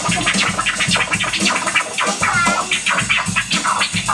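A DJ scratching a vinyl record on a turntable over a backing beat: rapid back-and-forth cuts, with a sample sweeping up and down in pitch about two seconds in.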